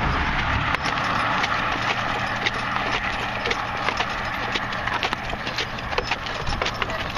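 Hooves of a team of two draft horses clip-clopping at a walk on pavement, in a quick, irregular run of clops. A rushing noise is strongest over the first few seconds and then eases.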